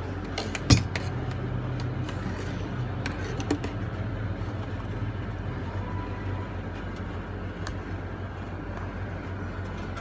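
Steady low hum of coffee-shop equipment behind the counter, with a sharp knock under a second in and a few faint clicks.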